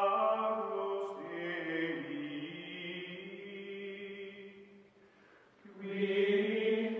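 Music of slow, chant-like voices holding long notes, which sink low about five seconds in and swell again louder near the end.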